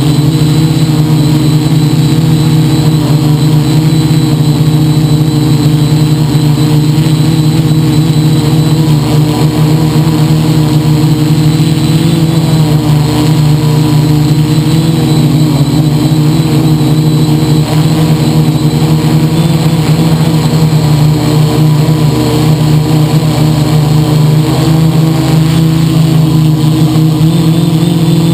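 Quadcopter's electric motors and propellers buzzing steadily, heard close up from a camera mounted on its frame, the pitch wavering slightly as the craft holds its position.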